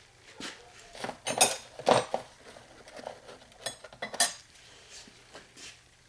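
Chrome-steel Snap-on wrenches clinking and clattering against each other as they are picked up and handled, a string of sharp metallic clinks with two louder clusters, about a second and a half in and about four seconds in.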